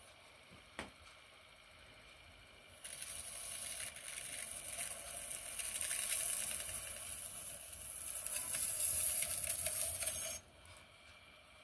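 Small modelling tool scraping a miniature clay vase as it spins on a mini potter's wheel: a hissing scrape that starts about three seconds in, grows louder, and stops abruptly near the end.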